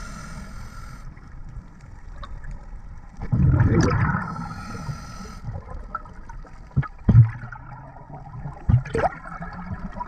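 Muffled underwater sound of scuba divers' exhaled bubbles gurgling and rumbling, swelling louder about three seconds in, with a few short knocks in the second half.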